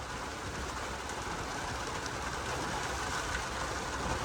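Steady rushing road noise inside a car's cabin while driving in heavy rain: tyres on the wet road and rain on the car, over a low rumble.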